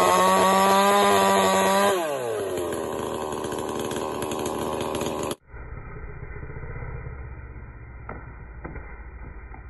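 Chainsaw revved up to full speed and held there, then dropping back to a lower idle about two seconds in. The saw cuts off suddenly about five seconds in, leaving a quieter low rumble with a couple of sharp knocks.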